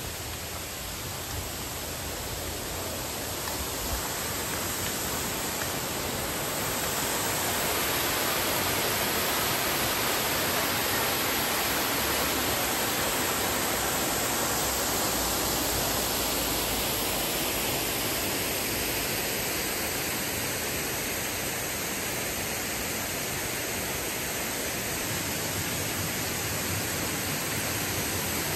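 Waterfall: a steady rush of falling water that grows louder over a couple of seconds about a quarter of the way in, then holds.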